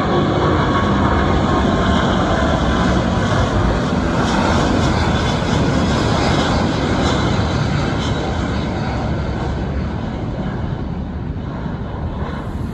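Airbus A350 jet's Rolls-Royce Trent XWB turbofan engines at takeoff power, a loud steady roar that slowly fades over the last few seconds.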